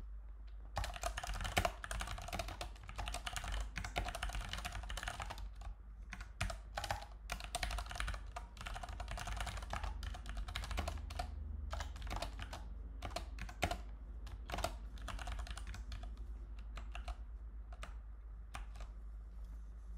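Typing on a computer keyboard: a run of quick keystrokes, dense at first and becoming more spaced out in the second half, with only a few strokes near the end.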